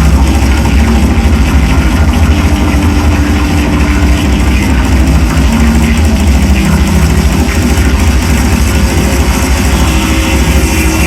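Loud live psychedelic drone noise music: a dense, unbroken wall of distorted sound over a heavy low rumble, with a few held tones that shift now and then.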